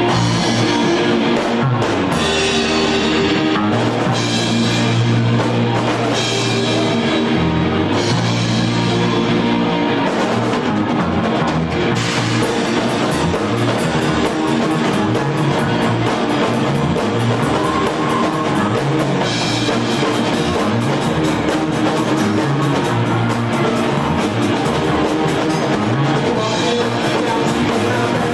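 A live rock band playing: distorted electric guitars over a drum kit keeping a steady beat, with held low notes under the chords.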